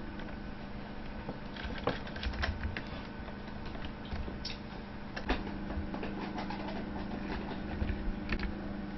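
Small screwdriver turning screws into an HP 625 laptop's plastic base, with scattered light clicks and taps of the tool and the plastic chassis being handled, over a steady low hum.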